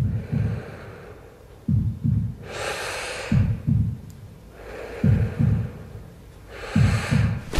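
Slow heartbeat-like double thumps, five pairs about every 1.7 seconds, with long breathy inhales and exhales between them, played as a stage act's soundtrack.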